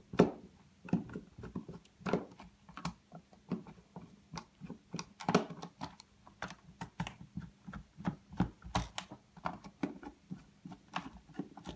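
Screwdriver turning screws into the plastic back cover of an alarm control panel, with irregular small clicks and taps of the tool and fingers on the plastic housing.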